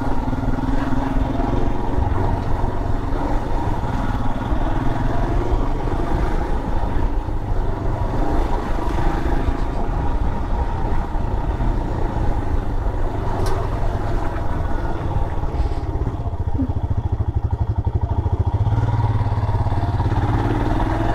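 Motorcycle engine running steadily while the bike is ridden along a road.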